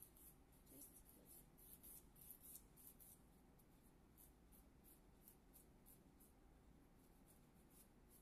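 Faint hand filing of an acrylic nail extension: a nail file or buffer rasping back and forth over the nail, about three short strokes a second, growing fainter after about three seconds.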